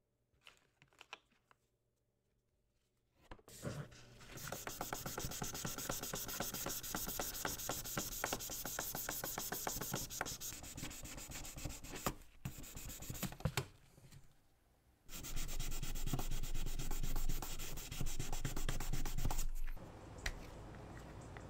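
Hand sanding of a bare diecast metal car body: quick back-and-forth rubbing strokes starting about four seconds in. The strokes pause briefly just past halfway, then resume louder for a few seconds before easing off near the end.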